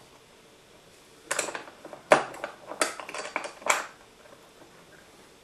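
Metal clicks and knocks from a euro profile cylinder lock being handled and set into a small bench vise, in a quick irregular run with the sharpest knock about two seconds in.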